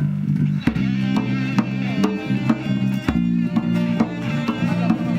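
Live band music: a bass guitar plays a repeating bass line, and more instruments with wavering higher notes come in under a second in.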